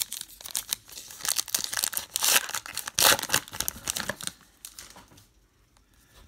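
Wrapper of a trading card pack crinkling and tearing as it is ripped open and the cards are pulled out. The crackling stops about four seconds in.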